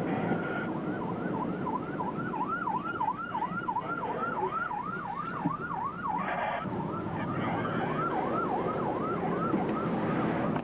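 Emergency vehicle siren on a fast yelp, a rapid rising-and-falling wail about three cycles a second, over a steady low rumble. It breaks off briefly past the middle and starts again.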